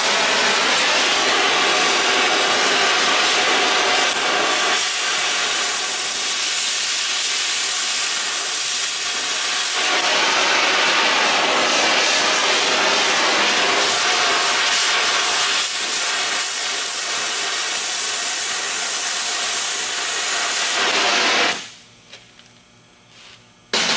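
Gas cutting torch hissing steadily as its jet cuts a hole through metal plate. It shuts off suddenly a couple of seconds before the end, followed by a brief knock.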